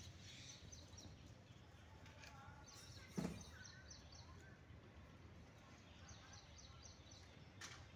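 Near silence with faint high bird chirps repeating in the background, and one short thump about three seconds in.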